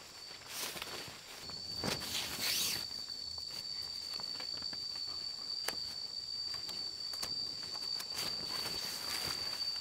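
An insect singing one steady high-pitched tone that starts about a second and a half in and carries on unbroken. Over it, a few light clicks and knocks of wooden sticks being handled, and a short rustle about two seconds in.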